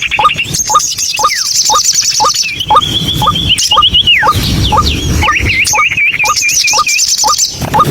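White-breasted waterhen (ruak-ruak) calling: a monotonous series of short rising notes, about three a second. Higher trills and down-slurred whistles run over them.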